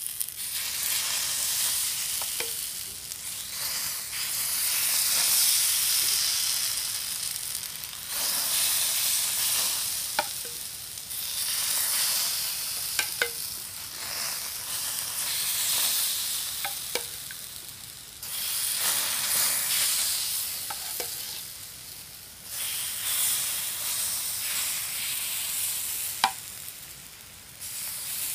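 Takoyaki batter sizzling as it is ladled into the hot, oiled cups of a Nichinen takoyaki plate. The sizzle swells with each pour and dies down between pours. A few light metal clinks come from the ladle against the plate.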